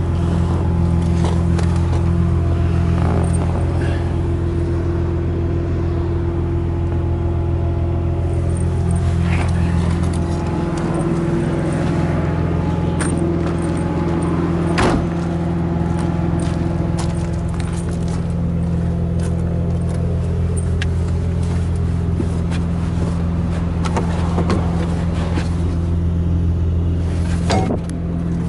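Nissan 300ZX twin-turbo's V6 engine idling steadily, with scattered clicks and knocks of handling, the loudest knock about halfway through.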